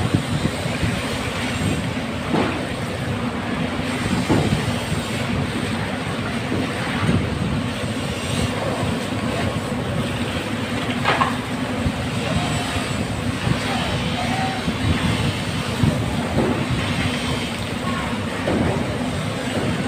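Steady low machine-like rumble with a few scattered knocks and scrapes from knives and hands working a large bluefin tuna on a wet concrete floor.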